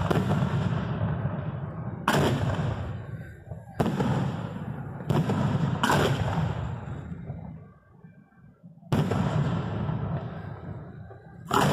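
Aerial fireworks shells booming: six sharp reports at uneven intervals, two of them close together in the middle, each trailing off in a rolling rumble, with a short lull about eight seconds in.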